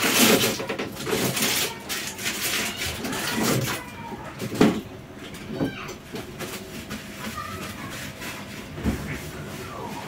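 Kitchen handling noises: rustling and clatter as bread and paper are handled at a contact grill, with a sharp knock about halfway through and a softer one near the end.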